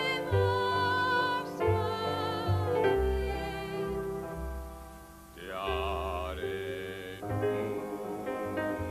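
A woman singing a comic song in an operatic style with wide vibrato, over an accompaniment with a bouncing bass that alternates between two low notes. About five seconds in, the voice swells into one long, heavily wavering note.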